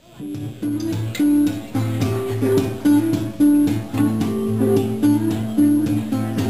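Guitar playing a song's instrumental opening, picked chords over a repeating low note pattern, starting up from silence.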